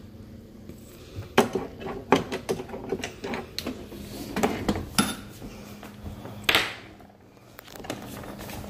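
Scattered clicks and knocks of a dishwasher door and its hinge parts being handled and worked, with a brief louder noise about six and a half seconds in.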